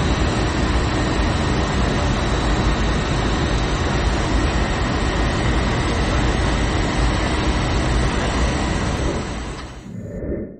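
Jet airliner sound effect: a steady engine and cabin rumble with a faint high whine, fading out near the end.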